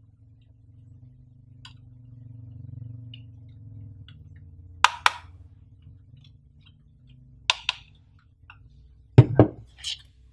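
Sharp plastic clicks of a TP-Link TL-WA855RE range extender's two hinged antennas snapping into position, coming in two pairs about five and seven and a half seconds in. Then two louder knocks as the plastic unit is set down on a table near the end.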